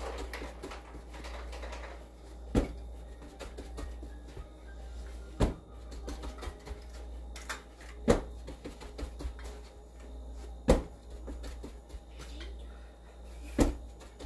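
A person's feet landing heavily on a carpeted floor during repeated jumps, five thuds spaced roughly every two and a half to three seconds, with a steady low hum under them.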